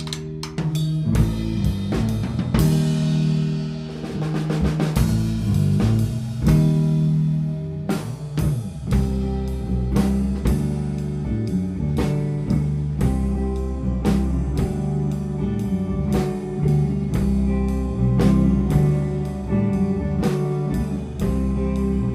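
Instrumental band of electric guitar, bass guitar and drum kit playing a groove. About eight seconds in, the bass and drums fill out into a heavier, steady beat.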